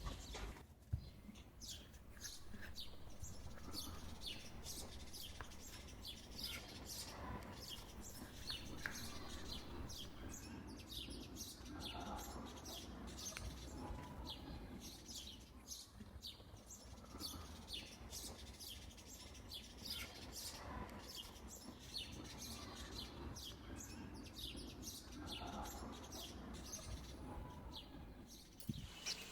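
Faint birdsong: many short high chirps throughout, with a lower call every few seconds.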